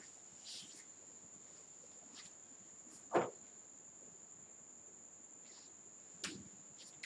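Quiet room with a steady high-pitched tone. A duster rubs briefly on a whiteboard about half a second in, a single short thud comes a little after three seconds in, and a sharp click about six seconds in.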